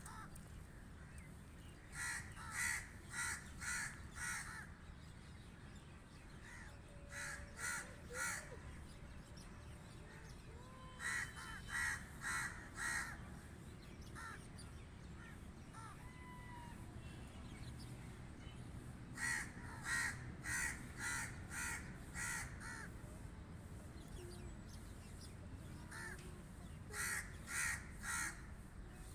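Crows cawing in five bouts of three to six evenly spaced caws each, with pauses of a few seconds between bouts, over a steady low background rumble.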